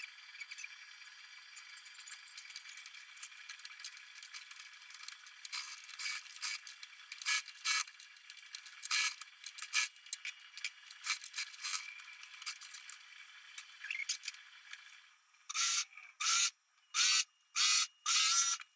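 Fabric being handled, with small clicks and scrapes. Then a sewing machine stitches in five short spurts over the last few seconds.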